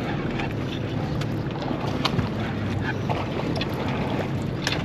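Steady low rumble of wind and water around a fishing boat, with scattered short sharp clicks and knocks.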